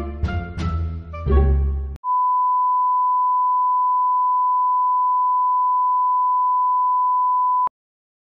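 Background music with a beat for about two seconds, then a single steady, high-pitched test-tone beep lasting about five and a half seconds, the kind laid over a blue 'no signal' screen as an editing effect; it cuts off suddenly.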